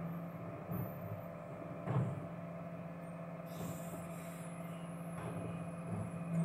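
Volvo refuse collection truck with a Farid body running steadily with a low hum. A few knocks from wheelie bins being handled sound over it, the sharpest about two seconds in, and a brief hiss comes about halfway through.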